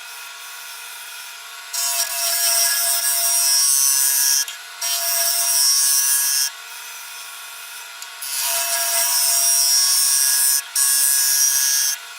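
Wood lathe running with a steady whine while a wooden bowl is worked on it: four passes of a couple of seconds each of loud, high hissing scraping against the spinning wood, with only the lathe's whine between them.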